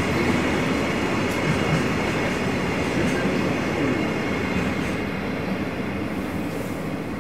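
Freight train's container wagons rolling away on the rails, a steady wheel rumble with a few faint clicks that slowly fades.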